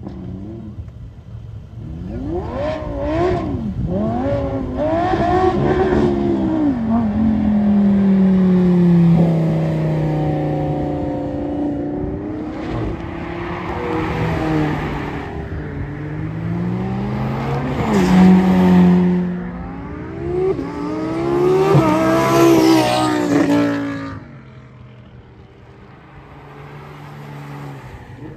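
High-performance sports cars accelerating hard one after another as they pull away, including a McLaren. The engines rev up and drop in pitch again and again through gear changes and passes. The loudest bursts come about 18 and 22 seconds in, and it turns much quieter from about 24 seconds.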